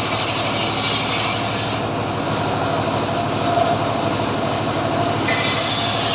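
Homemade sawmill (gergaji srekel) running, a steady engine pulse under a high hiss that eases for a few seconds in the middle.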